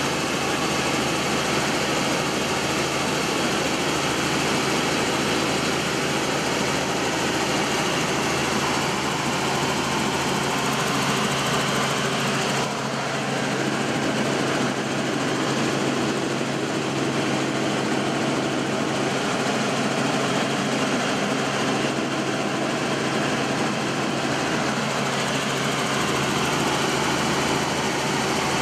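Steady engine and rotor noise of a helicopter in flight, heard from inside the cabin.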